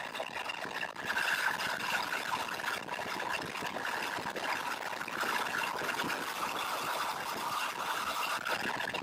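Shelby Mustang's engine and road noise at speed, recorded inside the car by an action camera sealed in its case: a steady, muffled, blown-out hiss and rumble with little clear engine note, as the car accelerates hard out of a corner onto a straight.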